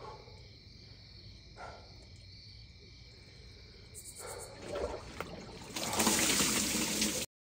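Water sloshing and splashing in a wine-barrel cold plunge as a person lowers himself into it, building up about four seconds in and loudest near the end before cutting off suddenly. Before that, crickets and a faint steady hum.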